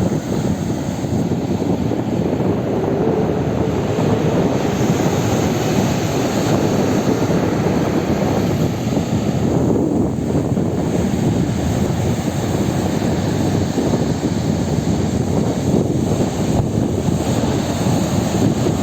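Sea surf, a steady low roar without distinct wave breaks.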